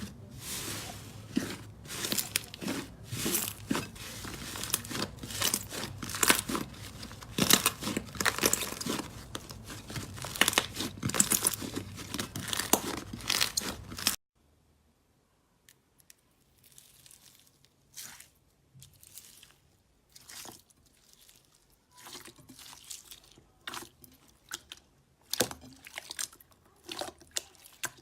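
Slime being worked by hand close to the microphone, with dense crunching and crackling for about the first half. It cuts off suddenly, giving way to quieter, scattered squishes and pops.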